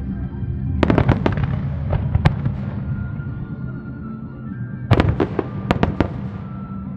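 Starmine fireworks: aerial shells bursting in two rapid volleys of sharp bangs, about a second in and again near five seconds, each trailing off in a crackle, with music playing underneath.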